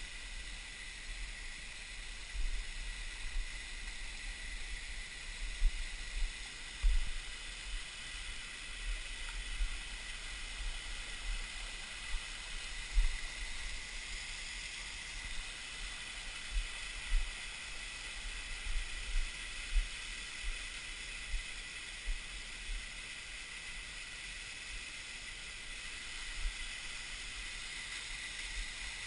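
Hickory Nut Falls: a steady hiss of water pouring down the rock face and splashing onto the boulders below. Frequent short low thumps on the microphone stand out above it.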